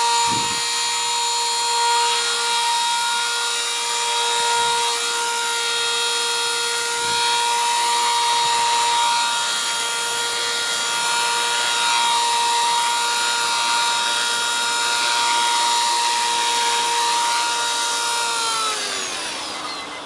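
Gaui Hurricane EP200 v2 electric RC helicopter in flight: its motor and gear whine steadily over the rush of the rotor blades. Near the end the whine falls in pitch and fades as the rotor spools down.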